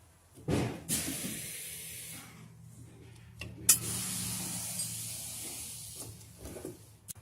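Two long bursts of spraying hiss: the first comes about a second in and lasts over a second, the second starts with a sharp click near the middle and runs about two seconds. A faint low steady hum is underneath.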